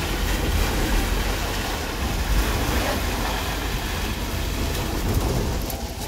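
Concrete pump running: a steady low mechanical rumble with a noisy wash over it.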